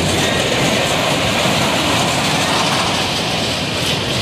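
Larson Ring-of-Fire ride's train of cars rolling around its vertical loop track, a loud, steady rumbling rail noise.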